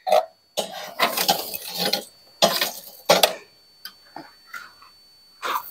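Long metal tongs scraping and clinking inside a wood-fired pizza oven as hot coals are pushed onto a metal wood rack, in several short bouts of scraping and clatter that thin out to a few clicks.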